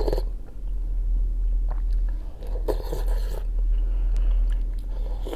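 Close-up eating sounds: a spoonful of pea soup with chunks of stewed meat taken off a wooden spoon and chewed, with a louder burst of noise about three seconds in and a few small clicks. A steady low hum runs underneath.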